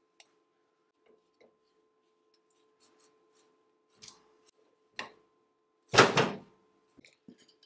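Metal clicks and knocks as an electric motor is levered with a steel bar along its slotted steel-angle mount, shifting it back one notch. One loud clunk about six seconds in, followed by a few lighter knocks.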